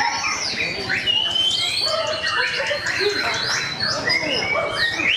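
Several caged white-rumped shamas (murai batu) singing at once: loud, overlapping whistled phrases with quick rising and falling glides and trills.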